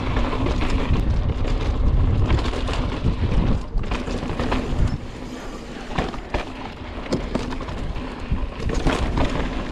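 Mountain bike rolling along a dirt trail: tyre noise with frequent sharp clicks and rattles from the bike over bumps, and wind buffeting the microphone, louder in the first half.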